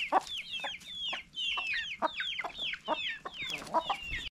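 Chicks peeping: a steady stream of short, high cheeps that fall in pitch, several a second, with a few lower clucks from adult chickens among them.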